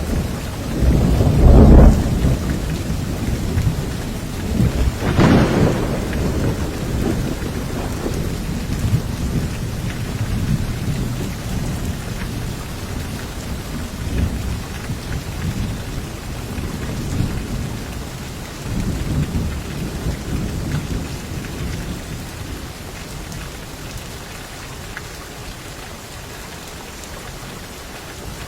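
Heavy rain with thunder: two loud cracks of thunder in the first few seconds, then rumbling that fades away under steady rain.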